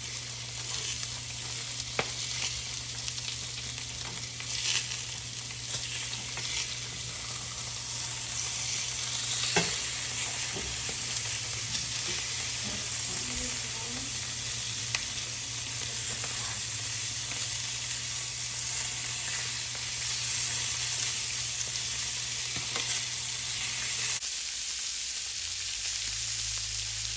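Porterhouse steaks sizzling loudly as they sear in a very hot cast iron grill pan, with a few light clicks. A steady low hum runs underneath and stops about three-quarters of the way through.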